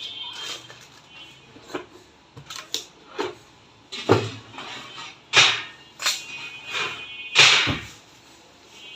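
Irregular clacks and knocks of hard objects being handled and set down, about a dozen in all, with three louder knocks in the second half.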